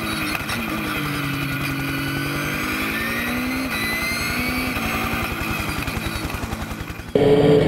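Dacia Duster hill-climb race car's engine, its note rising and falling through the gears over a fast, steady low pulsing. About seven seconds in, it cuts abruptly to the same engine heard loud from inside the cockpit under hard acceleration.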